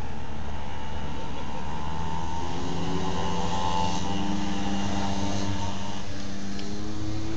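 A motor drones steadily in the background over a low rumble, its pitch sliding slowly up and down.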